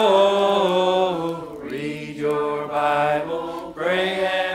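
Singing in long held notes without clear words, the pitch stepping to a new note about every second.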